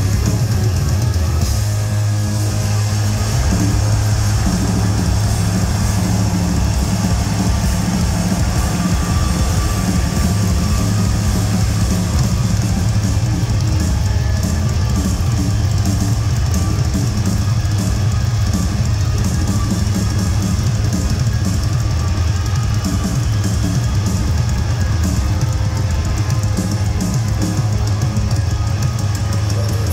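A live rock band playing loud heavy rock at a concert, with drums and a heavy, booming bass end, steady and unbroken throughout.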